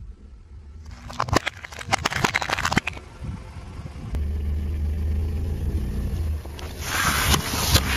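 Plastic cups cracking and crackling in a quick run as a car tyre crushes them. Then a car engine idling with a steady low hum, and near the end a louder burst of crunching and squishing as liquid-filled packets are flattened under the tyre.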